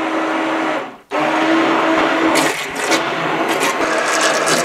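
Handheld immersion blender running in a pot of tomato soup, blending in olive oil, with a steady motor whine. It stops for a moment about a second in, then starts again, and short bursts of churning noise come through in the second half.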